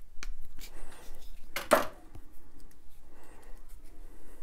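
Hard-plastic handle pieces and the steel tang of a Mora knife clicking and knocking as they are handled and pried apart by hand, with one louder clack a little under two seconds in.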